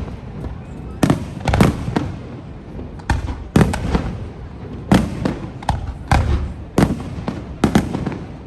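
Fireworks display: shells bursting in a quick series of loud bangs, about ten in all, often in pairs, each trailing off in an echo.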